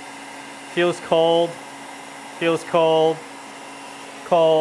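Industrial-strength heat gun running steadily on high: a constant blowing rush of air with a low motor hum, with a man speaking briefly over it three times.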